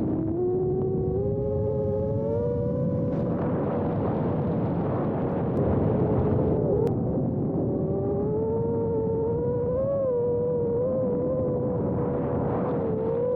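FPV quadcopter's brushless motors and propellers whining, the pitch drifting up and down with throttle, over a rush of wind noise.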